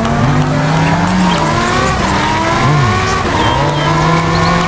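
Car engine revving sound effect: several engine notes rise and fall over one another, with a brief dip in pitch a little past halfway.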